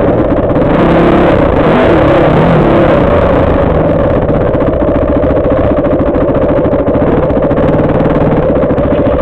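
Yamaha WR450F dirt bike's single-cylinder four-stroke engine revving up and down for the first few seconds, then settling into a steady, evenly pulsing idle as the bike comes to a stop.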